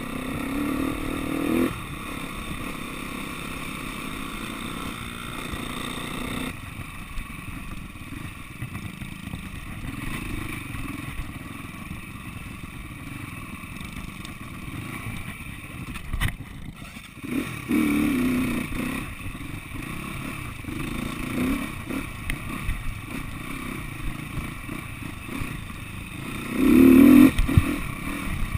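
SWM 300RS trail bike's single-cylinder four-stroke engine running at low speed on a rough track, opening up a few times, loudest near the end. The bike's chassis clatters and knocks over the bumps.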